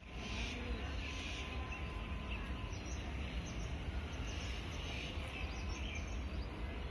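Steady low rumble of idling WDG-4G diesel-electric locomotives, GE GEVO diesel engines, with birds chirping repeatedly over it.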